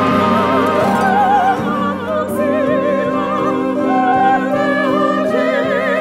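Female opera singers holding notes with wide vibrato, their voices overlapping, over a sustained chamber-ensemble accompaniment.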